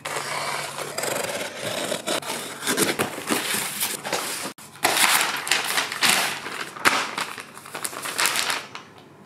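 Unpacking a flat-pack furniture box: a utility knife slitting the packing tape on the cardboard, then the cardboard flaps, foam sheet and plastic wrapping rustling and crumpling as the box is opened. It cuts out briefly about halfway through and is quieter near the end.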